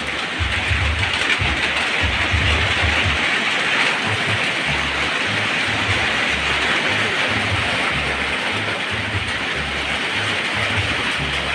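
Steady heavy rain: a dense, even hiss of falling drops, with an uneven low rumble coming and going underneath.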